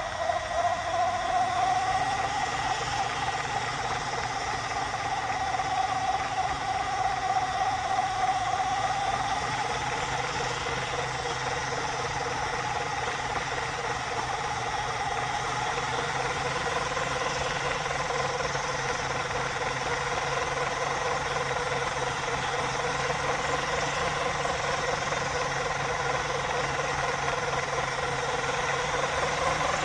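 Electric drive motor and gearbox of a radio-controlled toy Mini Cooper S whining steadily as the car runs in circles. The pitch rises a little at the start, drops lower about ten seconds in, then holds.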